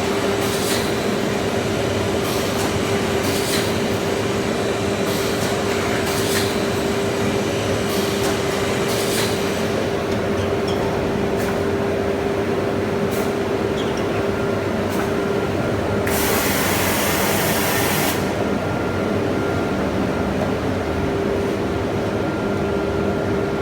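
CNC multiple boring machine running with a steady hum and one constant tone. For the first ten seconds it gives short sharp clicks or hisses about every second and a half, then fewer. About sixteen seconds in there is a loud hiss lasting about two seconds.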